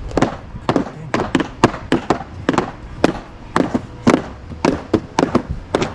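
Hammer tapping pieces in to lay them flat: quick, uneven blows, about three a second.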